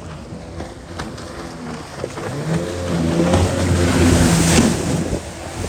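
Yamaha WaveRunner jet ski engine running at speed, getting louder as it comes close about two seconds in, with the hiss and splash of its spray peaking shortly after and easing off near the end.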